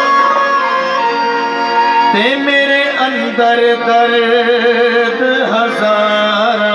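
Live amplified devotional music: a male voice holding long, wavering sung notes over sustained instrumental accompaniment.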